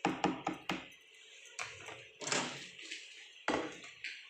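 LG microwave oven's door being opened and shut as a plastic bowl goes in: a series of clicks and knocks, with a sharper knock near the end.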